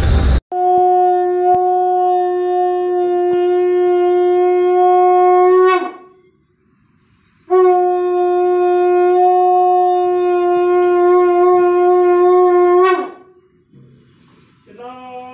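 A conch shell (sangu) blown in two long blasts of about five seconds each. Each is a steady horn-like tone that drops in pitch as the breath runs out at the end.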